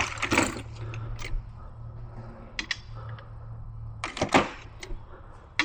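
Scattered clinks and knocks of hand tools handled against metal, a few separate strikes, over a steady low hum that stops about four seconds in.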